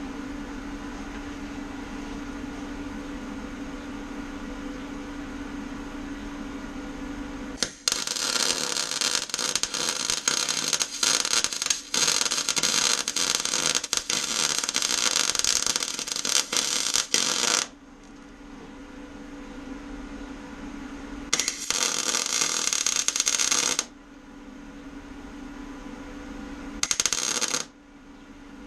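Röhr MIG-200MI MIG welder stitch welding thin steel body panels: the arc crackles in three bursts, a long one of about ten seconds, a shorter one of about two seconds, then a brief tack near the end. A steady hum fills the gaps between welds.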